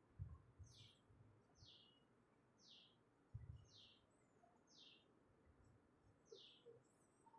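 Faint bird calling: six short high notes, each falling in pitch, about one a second. A few soft low thumps come in under it, the loudest just after the start and about three and a half seconds in.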